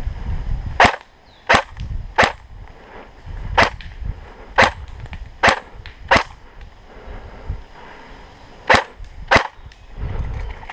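Airsoft electric rifle (AEG) firing nine single shots, each a sharp snap, spaced unevenly with a longer pause before the last two.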